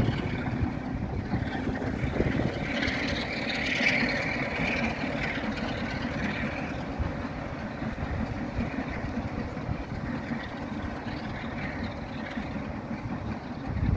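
Departing train of coaches, hauled by a Black 5 steam locomotive with a Class 47 diesel at the rear, pulling away and receding. It makes a steady low rumble that swells briefly about four seconds in and then slowly fades.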